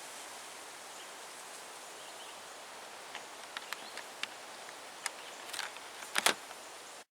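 Small sharp clicks and taps of handling, scattered over a steady hiss, with a louder double knock near the end; the sound then cuts off abruptly.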